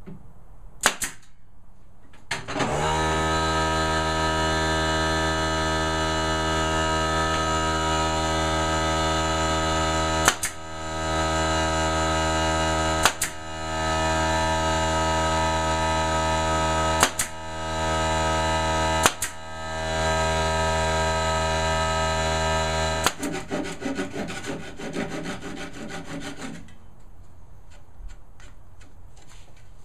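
Nail gun firing several sharp shots as thin edging is tacked onto a cabinet box, while an air compressor motor starts up about two and a half seconds in and runs with a steady hum, then shuts off a few seconds before the end, leaving small rattles.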